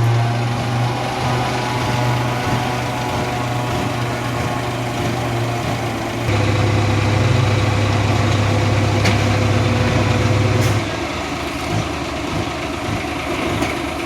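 Concrete pump's engine running steadily as pumping restarts. It runs louder from about six seconds in, drops back at about eleven seconds, and irregular knocks follow.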